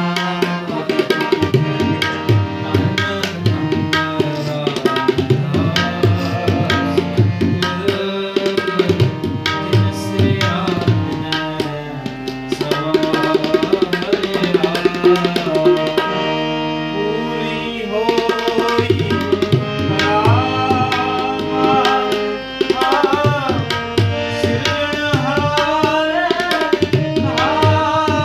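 Harmonium and tabla playing a Sikh shabad kirtan, the tabla keeping a steady rhythm under the harmonium's held chords. A man's singing voice joins in, clearest over the last several seconds.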